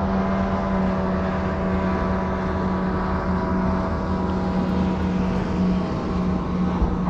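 A steady engine drone, a constant low hum with an even stack of tones above it.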